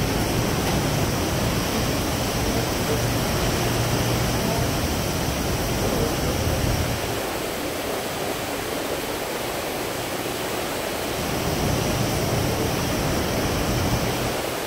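Steady rush of wind and sea water along a moving cruise ship, easing off for a few seconds midway.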